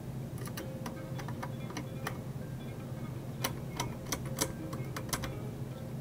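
Irregular small metallic clicks and ticks of a screwdriver working a screw into a steel hard-drive cage, the sharpest cluster about halfway through, over a low steady hum.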